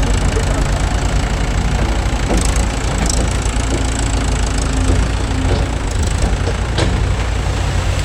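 Heavy diesel engine running steadily, with a few sharp metallic knocks over it.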